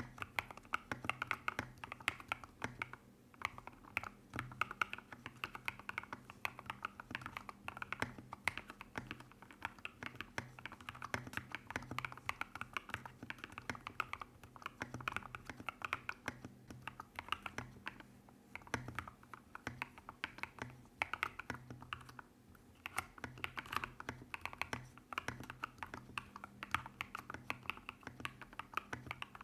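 Typing on a modded Royal Kludge RK100 mechanical keyboard with factory-lubed MMD Princess linear switches and MOA-profile keycaps: a steady stream of fast key clacks, pausing briefly a few times.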